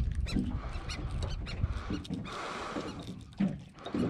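A freshly caught fish grunting in the hand while it is unhooked, with wind rumbling on the microphone.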